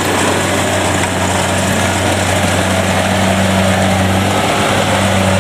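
Kubota DC70 combine harvester's diesel engine running steadily under load with the whir of its cutting and threshing machinery, a constant low drone with a brief waver about four and a half seconds in.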